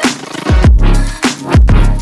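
Background electronic music with a heavy beat and deep bass notes that drop sharply in pitch, several times.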